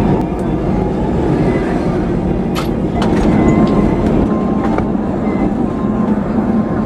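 Lisbon electric tram running along its rails, heard from on board: a steady rumble with a low hum, and a couple of sharp clicks about halfway through.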